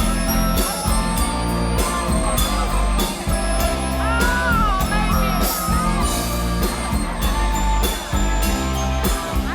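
Live band playing an amplified pop-rock song, with a steady drum beat and a bass line.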